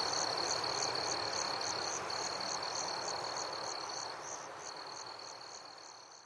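Summer night forest ambience: insects trilling steadily with a regular higher chirp about four times a second, over a dense chorus of frogs. It fades out over the last two seconds.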